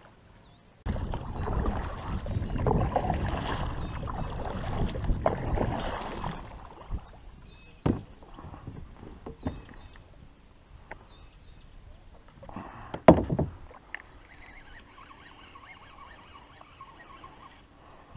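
Paddling a fishing kayak: the paddle splashes and swishes through the water, loudest over the first several seconds, with a few sharp knocks, the loudest about two-thirds of the way through.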